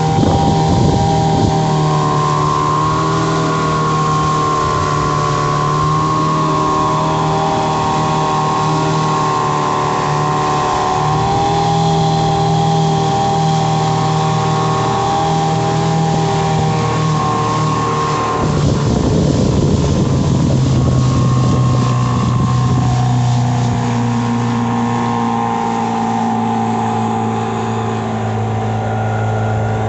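Mariner 15 hp outboard motor running steadily, pushing the boat along. A brief rush of noise comes a little past the middle, and the engine note drops somewhat lower about two-thirds of the way through.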